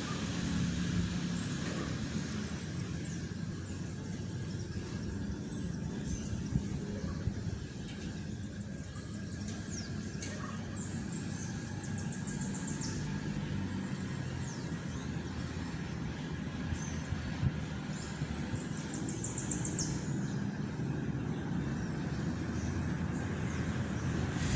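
Outdoor ambience: a steady low rumble of road traffic, with small birds chirping high and short now and then, and two quick rapid trills near the middle and about three-quarters through.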